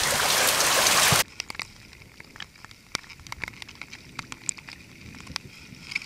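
Rain falling on a river: a loud, steady hiss of heavy rain, then about a second in a sudden change to a quieter hiss with many scattered raindrops ticking close by.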